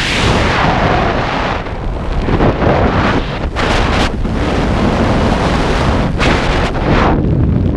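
Wind buffeting a helmet camera's microphone during a descent under an open parachute canopy: a loud, continuous rush that swells and dips in uneven gusts.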